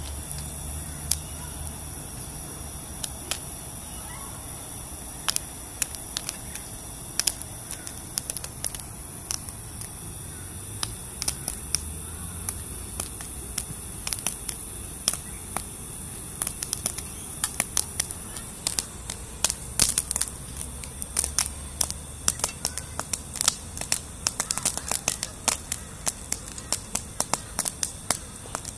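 Popcorn kernels popping in an uncovered frying pan over a gas camping stove: sharp single pops, few at first, coming faster and faster in the second half, over a steady high hiss.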